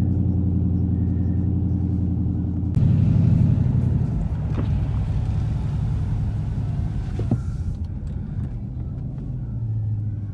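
Straight-piped 5.7-litre Hemi V8 of a 2013 Chrysler 300C (gutted cats, no resonators, no mufflers), heard inside the cabin: a steady low exhaust rumble as the car slows. There is a brief louder surge about three seconds in, then the rumble drops lower and fades as the car coasts down.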